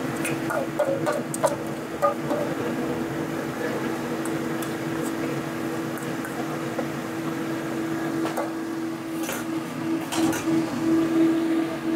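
Steady hum of a kitchen range hood fan over batter frying in a wok of oil, with a few clinks and scrapes of a bowl and spatula against the wok in the first two seconds and again near the end.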